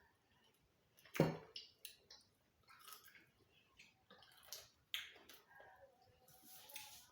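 Quiet eating sounds: chewing and handling of food, with scattered small clicks and one sharp knock about a second in.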